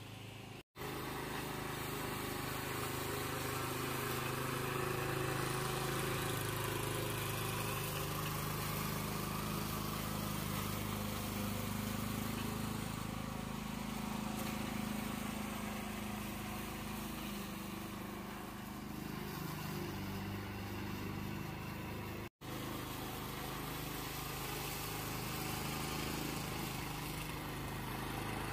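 Petrol rotary push mower engine running steadily under load while cutting grass. The sound cuts out for an instant twice, once just under a second in and again past twenty seconds.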